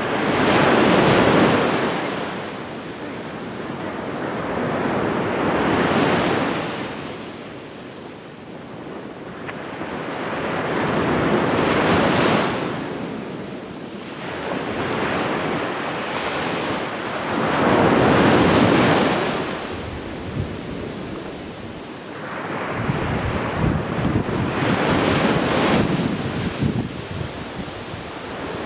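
Sea waves breaking and washing up a sandy beach, the surf swelling and fading in slow surges about every six seconds.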